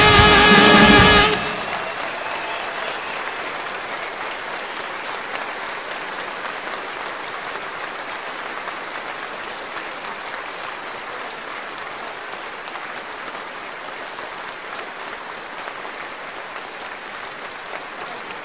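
A big band's final brass chord cuts off about a second in, followed by audience applause that slowly fades.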